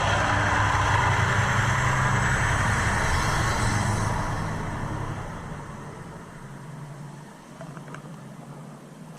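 A vehicle engine running, then fading away from about five seconds in as it moves off.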